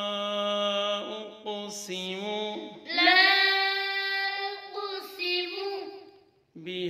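A single voice chanting Quranic Arabic slowly, drawing out the vowels into long held notes in tajweed style. There is a brief pause near the end before the chant resumes.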